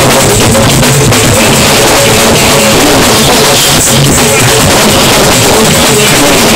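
Loud live fuji music blaring from loudspeakers: driving drums under a singer's voice, with no break.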